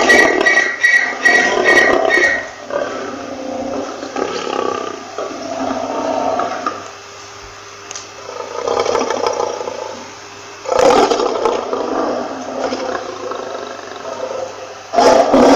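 Lion roaring in loud bouts: one near the start, one about eleven seconds in, and another right at the end, with quieter rough calls between.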